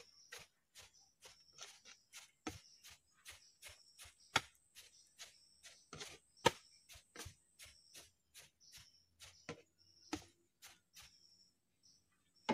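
Wood shavings being tamped down into a metal drum with a long-handled tool, packing them tight around the drum kiln's central pipe: quick jabbing crunches, about three a second, that stop about a second before the end. Insects keep up a faint steady high buzz underneath.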